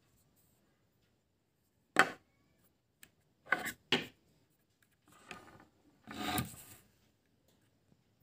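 Plastic parts of a homemade water pump (cream-jar body, PVC pipe outlet) being handled by hand: a sharp knock about two seconds in, then a few more short handling noises, the last one longer, nearly a second.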